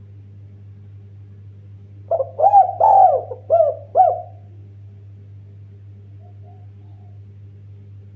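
Spotted dove (derkuku/tekukur) giving one cooing phrase of about five arched notes a couple of seconds in, over a steady low hum.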